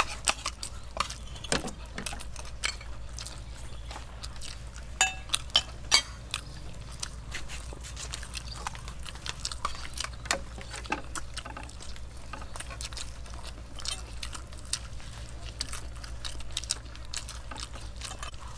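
People eating fried rice: spoons clicking and scraping on dishes, with chewing, heard as many scattered short clicks.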